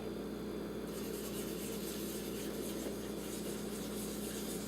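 Faint rubbing of an ST fiber optic connector in a hand-polishing puck moved over polishing film, setting in as soft, evenly repeating strokes about a second in, over a steady low hum.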